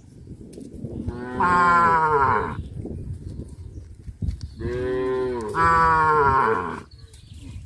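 Cattle mooing: two long moos, the first about a second in and the second, longer one from the middle, each dropping in pitch as it ends.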